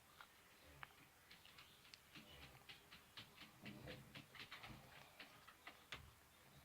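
Faint quick sticky clicks, several a second for a few seconds, from hands squeezing toothpaste and working it into slime.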